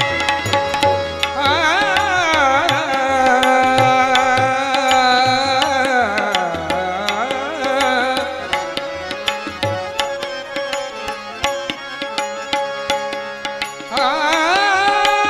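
Marathi abhang (devotional song) with a male voice holding long, sliding wordless notes over harmonium, tabla and violin, the tabla strokes keeping time throughout. The voice drops out about eight seconds in, leaving the instruments, and comes back in near the end.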